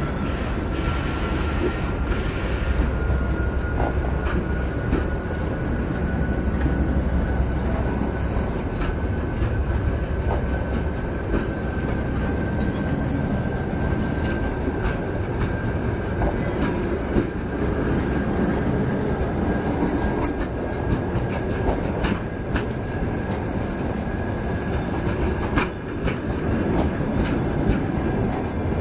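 Passenger coaches rolling past on the rails, picking up speed on departure: a steady rumble with scattered clicks of the wheels over the track, and a thin whine that creeps slowly higher in pitch as the train gathers speed.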